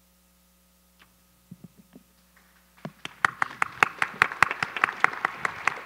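Audience applause: a few scattered claps about a second in, then from about three seconds in many people clapping steadily, with some sharp, close claps standing out.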